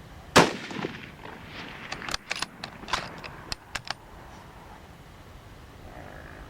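A single shot from a .243 Ruger American Predator bolt-action rifle, ringing out and fading over about a second. About a second and a half later comes a quick run of sharp metallic clicks as the bolt is worked to eject the case and chamber the next round.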